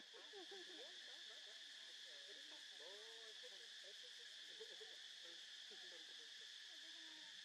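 Faint, steady drone of insects, with many faint short calls that glide up and down in pitch underneath.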